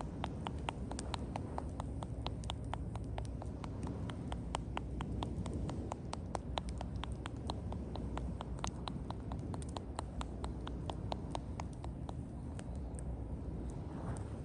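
Quick, fairly even light taps from a percussive hand massage (tapotement), about four a second, over a steady low rumble.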